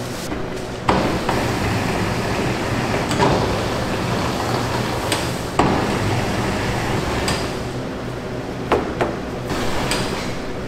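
Steady machine hum in a bakery kitchen, with about five sharp knocks and clatters of pastry work spread through it.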